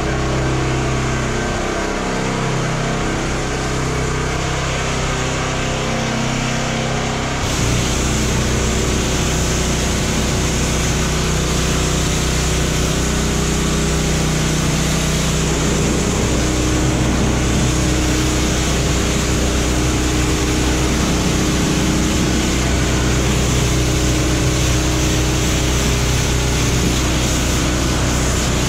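Pressure washer running with a steady hum. About seven seconds in, the spray starts and a steady hiss of the high-pressure jet rinsing soap off the tow truck's painted body panels joins the hum.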